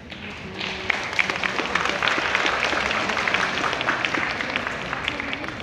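Audience applauding in a large hall: clapping swells about half a second in and tapers off near the end.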